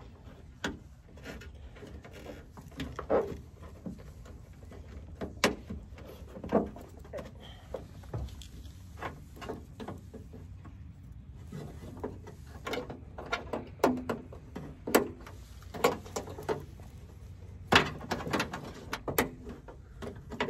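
Scattered clicks, taps and light rattles of hands working the wiring harness and its plastic plug connectors into an FR-S trunk lid. The louder snaps come mostly in the second half.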